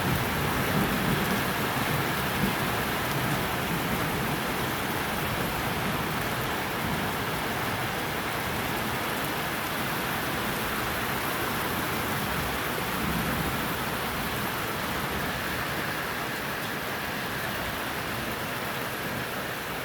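Steady rain falling during a thunderstorm, with low rumbles of thunder swelling near the start and again about two-thirds of the way through.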